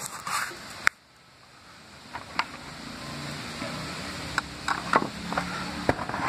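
Hands and a small screwdriver handling a netbook's plastic case: a few scattered clicks and taps over steady low background noise, which cuts out briefly about a second in.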